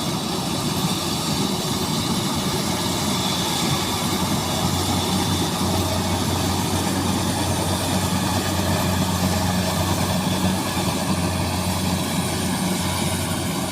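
Rice combine harvesters running steadily, an even engine drone with a low hum that grows steadier about four seconds in.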